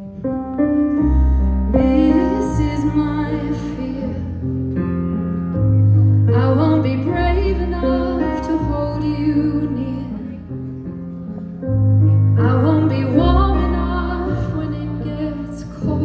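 Live band playing a song's instrumental intro: sustained keyboard chords over long, deep bass notes that change every second or two. The music swells in three phrases.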